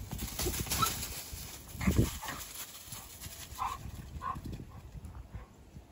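A Doberman and a Chihuahua play-fighting, their paws scuffling through dry leaves and dirt, with a few short dog noises and a louder thump about two seconds in.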